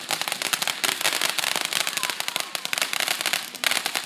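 Ground fountain firework spraying sparks, with a dense, rapid crackling of many small pops throughout.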